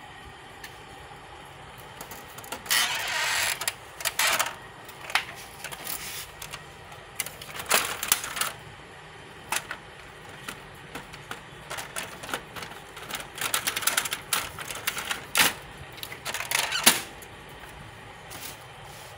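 Plastic front cover and parts of a Canon LBP6300dn laser printer being handled: irregular clicks, knocks and rattles. A denser scraping stretch comes about three seconds in and a sharp snap near the end, over a faint steady hum.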